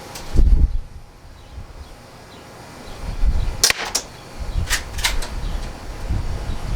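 Bara 1866 lever-action air rifle shooting and being cycled: a close pair of sharp cracks near the middle, then two or three more clicks about a second later. Wind buffets the microphone, with a loud low thump about half a second in.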